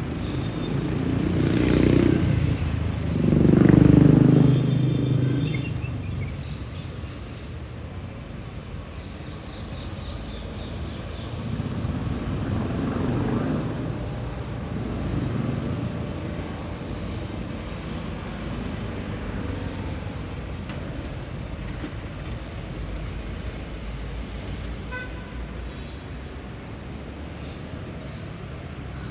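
Road traffic: a vehicle passes loudly about two to five seconds in, its rumble swelling and then dropping away, and quieter vehicles pass around twelve to sixteen seconds in, over a steady low background rumble.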